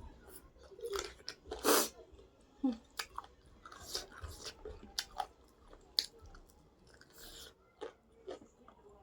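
Close-up chewing and biting of food, with irregular wet mouth smacks and crunches and one louder burst of noise just under two seconds in.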